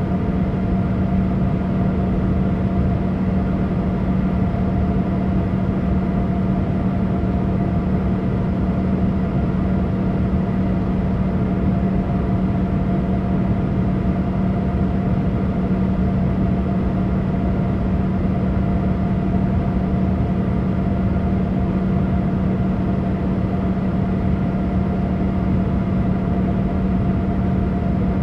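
Boeing 787 cabin noise: an even, steady rush of engine and air noise with a constant low hum and a fainter higher steady tone, unchanging throughout.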